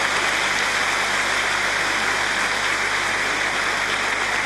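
Large theatre audience applauding steadily after a punchline, a dense even clapping.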